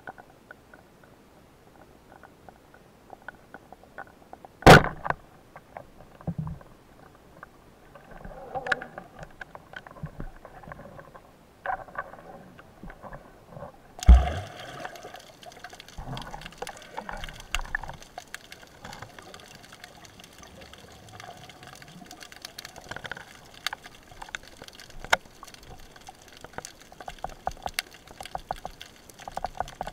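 Muffled underwater water noise with faint crackling and bubbling, as heard from a submerged camera housing, broken by a sharp knock about five seconds in and another about fourteen seconds in. After the second knock the water noise turns brighter and busier, full of small clicks and sloshing, as a spearfisher swims with his speargun just below the surface.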